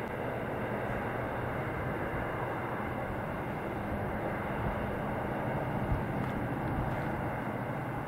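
Empty iron ore train rolling steadily away along the track: a continuous rumble of the ore wagons' wheels on the rails, with a faint drone from its diesel locomotives far ahead.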